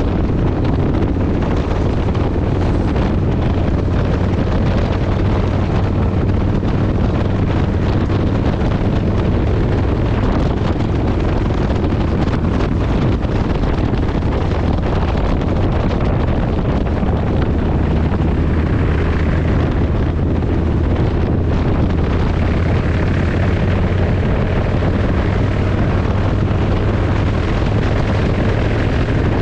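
Kawasaki VN1600 Mean Streak's V-twin engine running steadily while the motorcycle cruises along a country road, mixed with heavy wind noise on the microphone.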